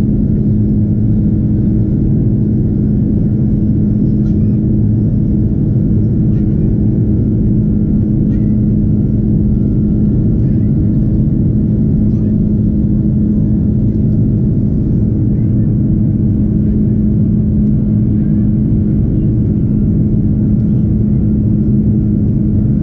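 Airbus A330 cabin noise in flight: the jet engines and rushing air make a steady low drone with a constant hum, unchanging throughout.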